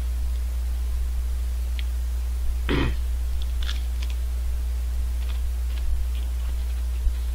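Chewing and crunching of a wafer ice cream cone with almond topping: one louder crunch a little under three seconds in, then scattered small crisp crackles, over a steady low hum.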